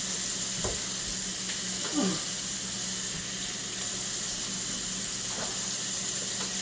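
Kitchen faucet running steadily as hands are washed under it, over the sizzle of chicken frying skin-side down in a cast iron skillet.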